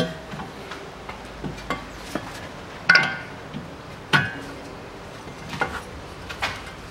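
Sharp metallic clinks and knocks of a steering knuckle and front wheel hub being handled and shifted into place. The loudest come near the start and about three and four seconds in, with a few fainter taps between.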